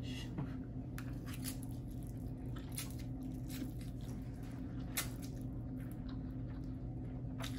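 Close mouth sounds of eating spicy noodles: wet slurps and chewing smacks, a scatter of short sharp clicks, the sharpest about five seconds in.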